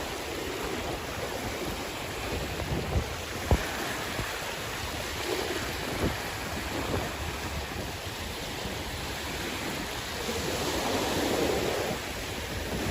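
Sea waves washing ashore, a steady rush with wind on the microphone, one wave swelling louder near the end. Two short sharp clicks cut through, the louder one about a third of the way in.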